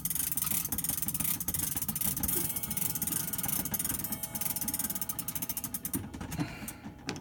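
Crank key winding the strike-side cable weight of a Sligh grandfather clock's cable-driven movement: fast, steady ratchet clicking from the winding drum. The clicking slows and stops about six seconds in.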